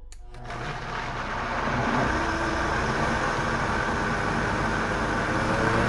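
High-powered countertop blender running, puréeing boiled vegetables and almond milk into a thick sauce. It ramps up over about two seconds, runs steadily, and stops abruptly at the very end.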